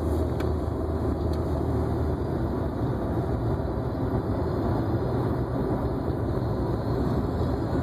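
Steady road and engine noise inside a moving car's cabin: a low hum under an even rush of tyre noise.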